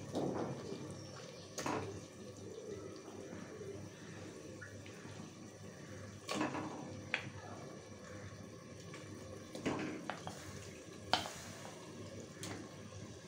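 Raw chicken pieces sliding off a ceramic plate into thick masala in an aluminium pressure cooker: scattered wet plops and squelches, with the wooden spatula scraping and tapping against the plate now and then.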